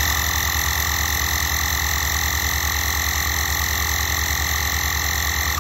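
Bosch EasyPump cordless tyre inflator running steadily, a rapid even pulsing of its compressor with a high whine over it, as it pumps an aircraft tyre up to a 24.5 PSI preset.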